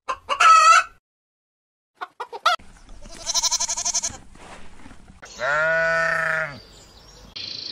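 Chickens give a few short squawking calls. After a pause comes a goat's wavering bleat, and then, about five and a half seconds in, a sheep's loud, drawn-out bleat that rises and falls in pitch.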